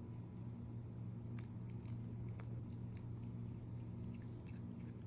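A kitten chewing lettuce leaves: faint, irregular crisp crunching clicks that begin about a second and a half in, over a steady low hum.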